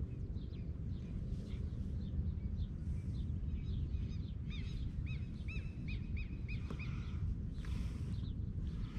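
A bird calling in a run of short, repeated arched notes, about three a second, over a steady low rumble of wind on the microphone; a brief hiss breaks in near the end.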